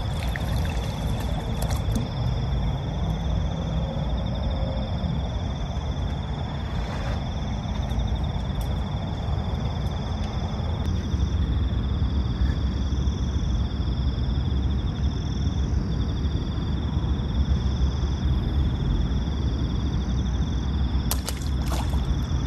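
Night insects trilling steadily in a high, even chorus over a steady low rumble, with a few faint clicks near the start and near the end.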